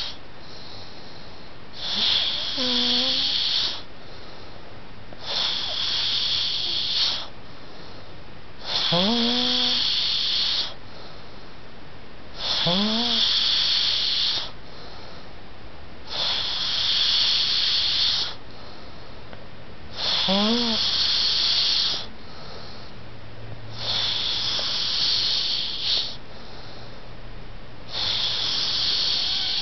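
A person snoring loudly and rhythmically, with eight snores about every three and a half to four seconds, each lasting about two seconds. Several snores begin with a short rising, buzzing tone.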